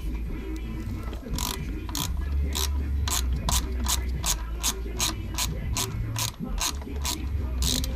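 Ratchet wrench clicking in a quick even run, about three clicks a second, starting about a second and a half in, over a steady low hum.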